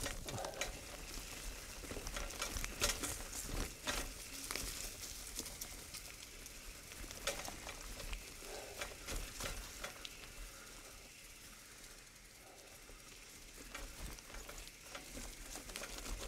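Bianchi mountain bike rolling over a rough forest dirt trail, picked up by a camera mounted on its frame: a crackly, rustling noise of tyres on dirt, twigs and leaves, broken by many irregular clicks and knocks as the frame jolts over bumps.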